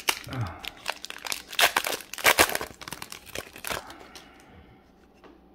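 Shiny plastic-foil hockey card pack wrapper crinkling as it is pulled open by hand, a dense crackle that is loudest in the middle and dies away about four seconds in.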